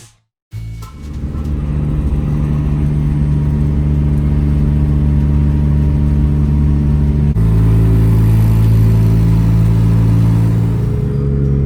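Daihatsu Naked's engine running at a steady speed, its exhaust loud and droning through a cracked rear muffler. About seven seconds in the sound shifts abruptly and becomes a little deeper.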